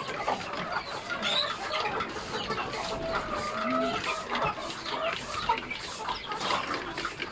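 Chickens clucking, several calls overlapping, with light clicks and rustles among them.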